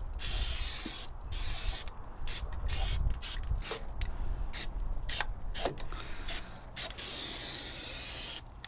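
Aerosol spray-paint can hissing in repeated bursts: a long spray at the start and another near the end, with many short squirts in between.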